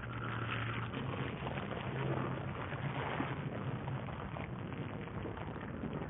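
Kubota BX sub-compact tractor's three-cylinder diesel engine running steadily as the tractor clears snow, with a constant low hum under a rushing noise.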